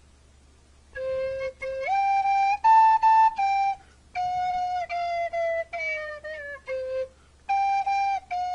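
A red plastic recorder with its mouthpiece in a horse's mouth, a man fingering the notes, playing a simple tune of held notes. The tune starts about a second in and breaks off briefly twice.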